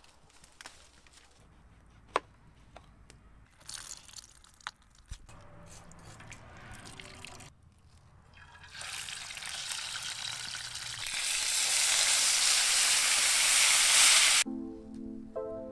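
Fish sizzling as it is laid into hot oil and fries in a pan: a loud frying hiss that begins about halfway through, swells, and cuts off suddenly near the end, where music starts. Before it, a few sharp clicks over a quiet background.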